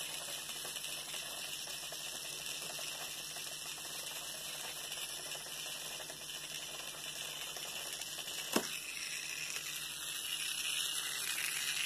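Motorised toy spider walking, its small motor and gears whirring with a fast, steady mechanical clatter. One sharp click about eight and a half seconds in.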